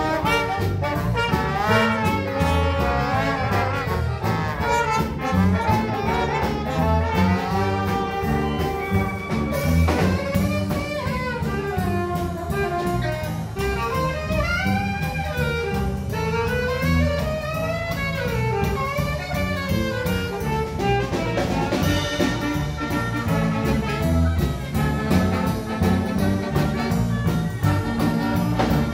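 Big band playing jazz live: trumpets, trombones and saxophones over drums and bass guitar with a steady beat. From about ten seconds in, a single saxophone line carries the tune alone for about ten seconds, then the full horn section comes back in.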